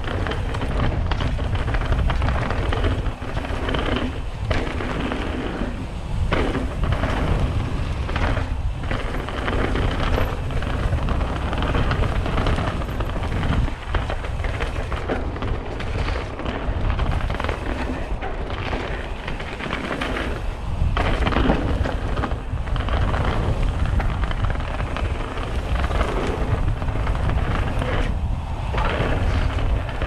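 Mountain bike descending a rocky gravel trail, heard from the rider's action camera: a constant wind rumble on the microphone, with tyres crunching over loose gravel and frequent knocks and rattles as the bike hits rocks.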